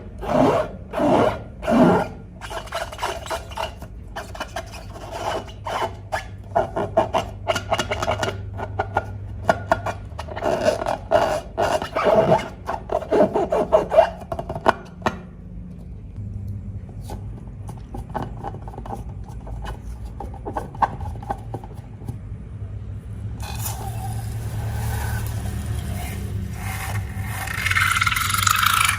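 Slime being worked by hand: a run of short, irregular scraping strokes, then a steadier rustling scrape that builds louder near the end, over a low steady hum.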